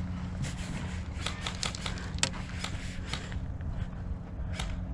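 Airsoft guns firing: an irregular run of sharp cracks lasting about three seconds, the sharpest a little past two seconds in, then a single crack near the end, over a steady low hum.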